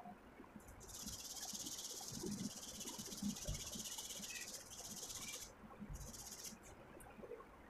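A small part being rubbed by hand on a sheet of sandpaper: a steady, high-pitched scratchy hiss lasting about four and a half seconds, then a shorter stretch of rubbing about a second later.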